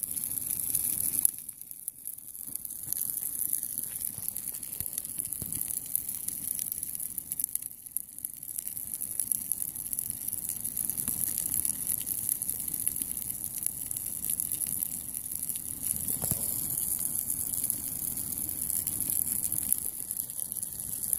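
A burning motorcycle helmet: the flames make a steady rushing hiss, with scattered small crackles and pops.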